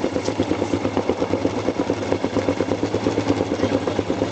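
Yamaha XT motorcycle engine running steadily at low revs, its firing pulses coming in a quick, even beat.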